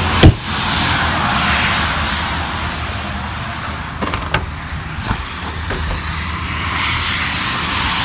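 Steady outdoor rumble and hiss like distant vehicle noise, with one sharp loud click about a quarter second in. A few lighter clicks and knocks between four and five seconds come as the latch of an RV's outside-kitchen compartment door is worked and the door opened.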